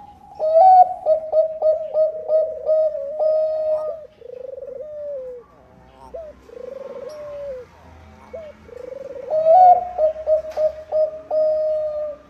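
Zebra dove of the Thai 'Bangkok' song type cooing: a fast run of short, clipped coos, then a few longer falling coos, then a second fast run near the end.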